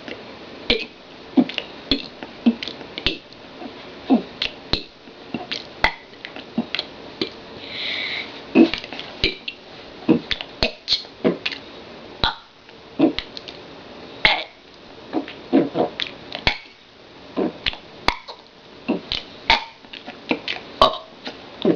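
A girl burping the opening letters of the alphabet, one short belch after another, with sharp clicks between them.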